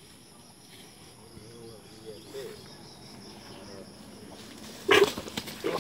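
Insects chirring steadily as a high, pulsing drone, with low voices murmuring about two seconds in. About five seconds in, a sudden loud short cry cuts in, the loudest sound, followed by a second shorter one.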